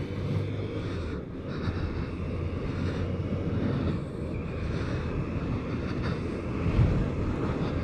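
BMW K1200RS motorcycle on the move: its inline-four engine drones steadily under a constant rush of wind noise.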